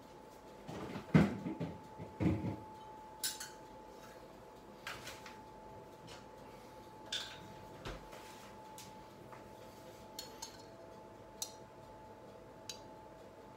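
Kitchen clatter of dishes and utensils being handled: two louder knocks about one and two seconds in, then scattered light clinks and taps, over a faint steady hum.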